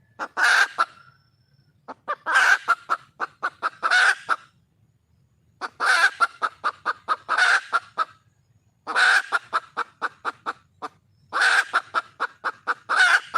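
Junglefowl hen calling in repeated bouts of quick, sharp clucks, five runs of about one to two seconds each with short pauses between them. This is the wild hen's call to a male.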